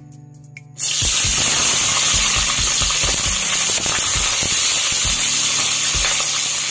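Onion pieces hitting hot oil in an aluminium kadhai, bursting into a loud, steady sizzle about a second in, with short low knocks of the spatula against the pan as they are stirred.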